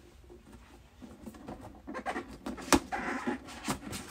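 Handling of a perfume gift-set box: rustling and scraping of the packaging, with one sharp click a little before the three-second mark.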